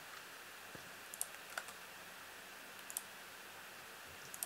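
A few faint computer mouse clicks, spaced a second or so apart, as points of a line are picked in a drawing program, over a faint room hiss.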